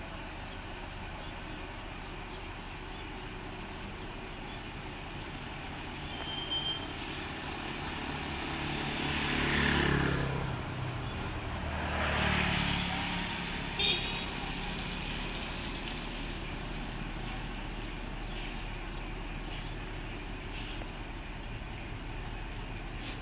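Road traffic: two vehicles pass close by, a couple of seconds apart, their engine sound swelling and then falling in pitch as each goes by. A short sharp sound follows soon after, against a steady traffic hum.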